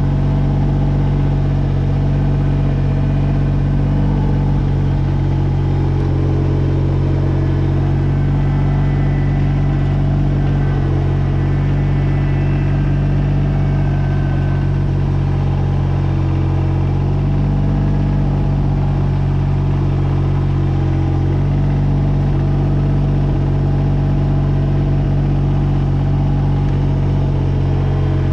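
Kubota BX22 compact tractor's three-cylinder diesel engine running steadily, its note shifting slightly a few times.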